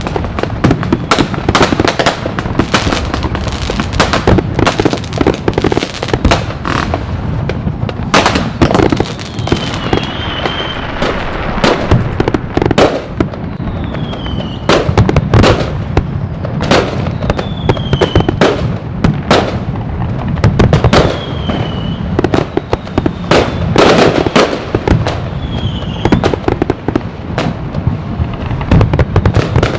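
Large fireworks display: a dense, continuous barrage of loud bangs and crackling firecracker pops, with several short falling whistles between them.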